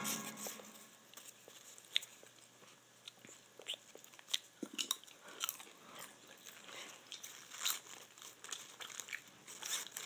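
Popped popcorn crunching and rustling in a metal bowl as a plush toy and hands are pushed into it: quiet, scattered small crunches and clicks.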